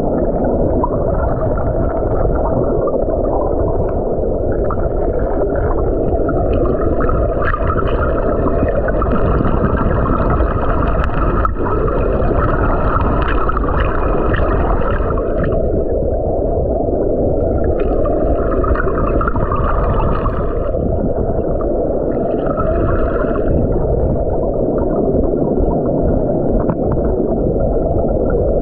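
Steady, muffled rush and rumble of moving water heard with the microphone underwater, with a higher hiss that swells and fades several times.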